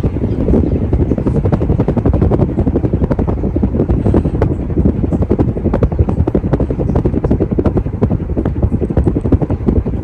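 50" Casablanca Delta II ceiling fan with four blades running, its air stream buffeting the microphone in a fast, uneven chopping of wind noise.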